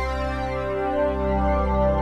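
Ambient background music of long, held chords.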